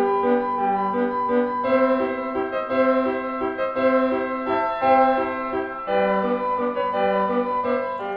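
Background piano music: a melody over a repeating pattern of low notes at about two a second.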